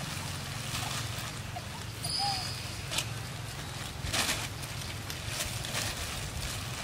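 Black plastic bin bag rustling and crinkling in irregular bursts as macaques tug at it and crawl about inside it, over a steady low hum. A brief high chirp comes about two seconds in.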